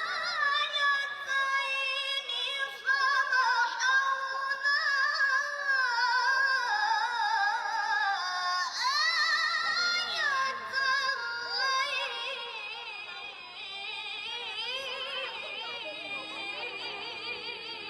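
A single high voice reciting the Quran in melodic tilawah style, drawing out long ornamented notes with a wavering pitch that slides between phrases. It grows quieter over the last few seconds.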